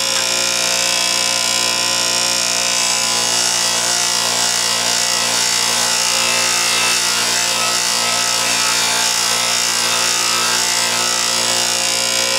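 Bench grinder running with a high-speed steel lathe threading tool held against the wheel: a steady grinding hiss over the motor's hum.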